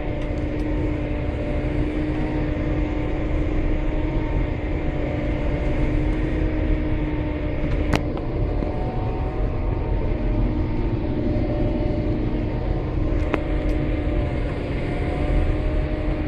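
Diesel engine running steadily while driving, heard from inside the cab, with a low rumble and a steady engine hum. Two sharp clicks sound about eight and thirteen seconds in.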